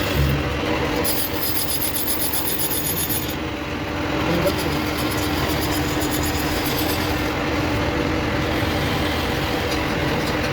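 A workshop machine running with a steady hum under constant rough noise. A fast rattle of fine ticks comes in for about two seconds near the start.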